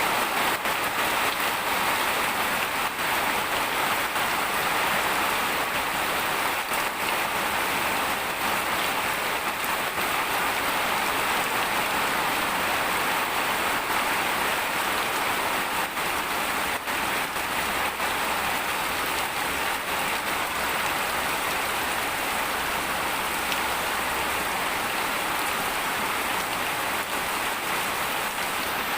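Steady rain falling, with scattered individual drops ticking on surfaces.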